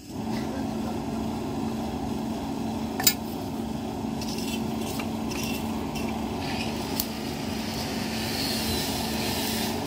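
Forge blower running steadily, a hum over a steady rush of air, driving air into the charcoal fire to heat the blade to hardening temperature before quenching. A couple of sharp ticks, about 3 s and 7 s in.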